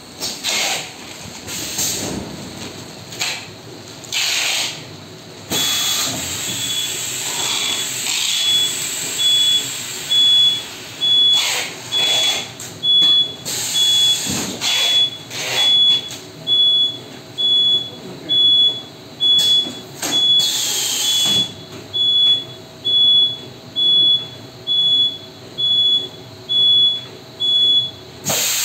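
Pneumatic quilt rolling packing machine at work: short bursts of compressed-air hiss from its cylinders, then from about six seconds in a steady high-pitched electronic beep about once a second from the machine's buzzer.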